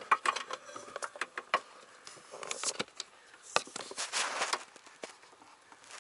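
Hands working wiring and a vacuum hose into a tight spot: scattered light clicks, taps and rustles, with no steady running sound.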